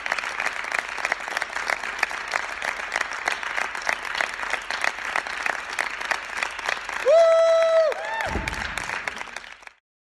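A small group clapping in an empty, echoing theatre auditorium. About seven seconds in, one voice gives a loud, held whoop, the loudest sound here, then a second shorter rising one. The applause cuts off suddenly near the end.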